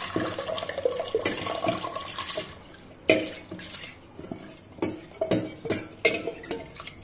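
Soaked mixed lentils poured and scooped by hand from a steel bowl into water in a steel pressure cooker: a splashing pour for the first couple of seconds, then several sharp clinks of steel on steel as the bowl knocks the cooker.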